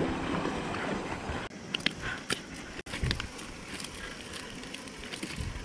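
Wind noise on the microphone, with a few sharp clicks of handling about two and three seconds in. The sound cuts out abruptly twice, at edits.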